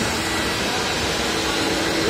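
Walk-behind floor scrubber dryer running, a steady whirring hiss with a faint steady hum from its suction motor and scrubbing brush on wet concrete.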